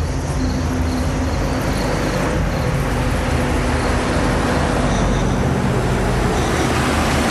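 A car approaching, its engine and tyre noise growing louder.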